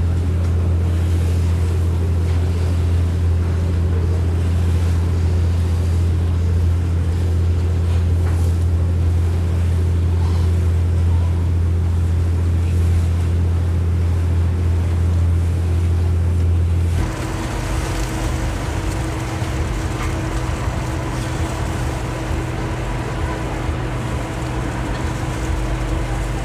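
Riverboat's diesel engine running with a steady low drone. About two-thirds of the way through, the sound changes abruptly to a quieter mix of lighter engine hum, a steady higher tone, and wind and water noise.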